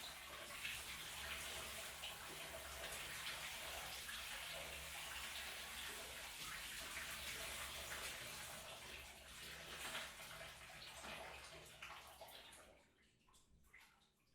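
Shower running, its spray splashing steadily, then shut off near the end, leaving a few drips.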